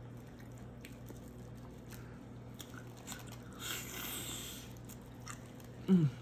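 A person chewing and biting shrimp with mouth and lip-smacking sounds and scattered soft clicks, with a wetter, noisier stretch about four seconds in. Near the end comes a short vocal hum that falls in pitch, the loudest sound.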